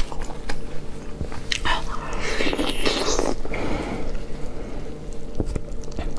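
Eating sounds close to the microphone: bites and chewing, with scattered wet clicks and a louder stretch of chewing about two seconds in.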